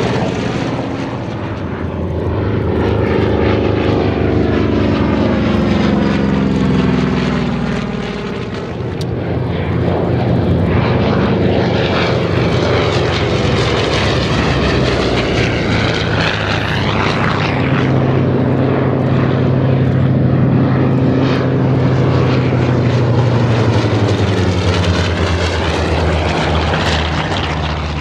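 Radial piston engines of WWII-era Navy fighters, an FG-1D Corsair and then an F8F-2 Bearcat, each with a Pratt & Whitney R-2800 Double Wasp, drone loudly as the planes fly past one after another. The engine note falls in pitch as the first plane goes by. A second pass follows with a strong, steady low drone.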